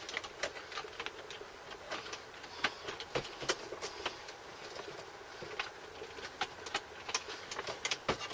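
Irregular clicks, knocks and scrapes as a bulky 8-track tape player is shoved and wiggled into a car's dashboard opening.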